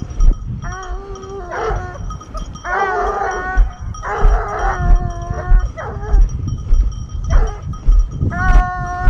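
Hunting hounds baying in chorus, long drawn-out cries, sometimes two dogs at once at different pitches, coming every second or so. Heavy footsteps on a stony path thud underneath.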